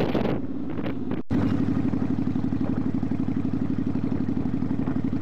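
Kawasaki Drifter's V-twin engine running while the motorcycle is ridden, with wind noise at first. An abrupt cut about a second in gives way to a steady, evenly pulsing exhaust beat.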